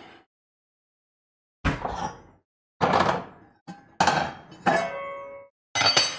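Metal pots and lids knocking together as they are moved about on the stovetop: five clanks, some ringing on briefly with a metallic tone.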